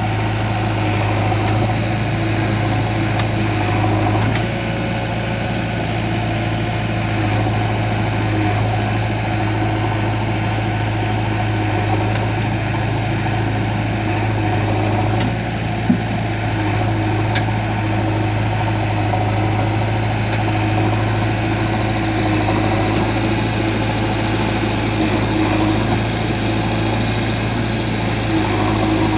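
Heavy diesel engine running steadily at an even speed, with one sharp knock a little past halfway.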